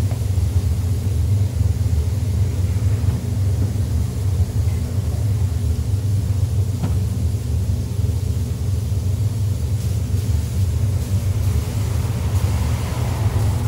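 Steady low rumble of paint-booth ventilation fans running, with a faint hiss coming in near the end.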